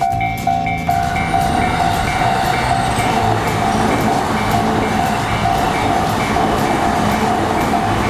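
A Japanese level-crossing warning bell dings steadily, about two and a half times a second. About a second in, an electric commuter train starts passing, its wheels and running gear rumbling over the rails under the bell.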